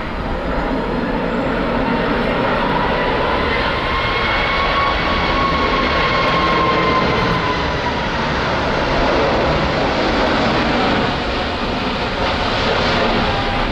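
Airbus A330-300 airliner on final approach with its landing gear down, its twin turbofan engines giving a loud, steady jet rush. Over it runs a high whine that rises a little and then falls back about halfway through as the aircraft passes.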